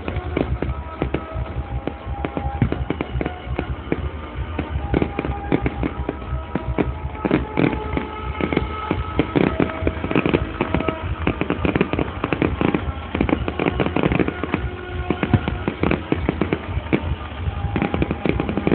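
Fireworks display going off continuously, a dense run of overlapping bangs and crackles, with music playing underneath.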